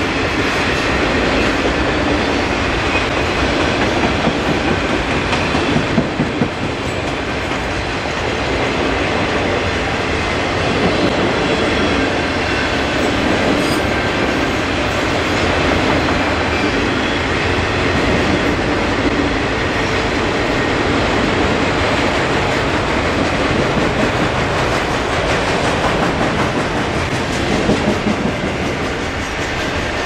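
Freight train's cars rolling past at steady speed: a continuous rumble with wheels clicking over the rails.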